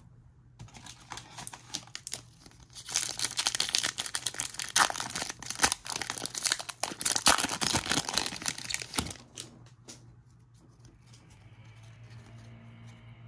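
Foil wrapper of a baseball card pack being torn open and crinkled: a dense crackling rustle that is loudest in the middle and stops about nine seconds in.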